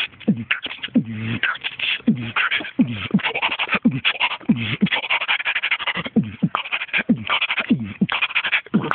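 A person beatboxing: a steady rhythm of low bass hits that drop in pitch, with hissy snare and hi-hat sounds made by mouth in between.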